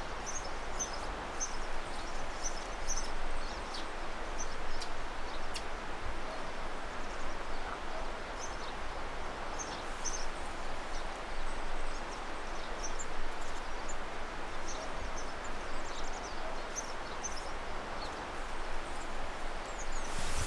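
Steady outdoor ambience, an even hiss like wind in trees, with faint scattered high chirps of small birds throughout.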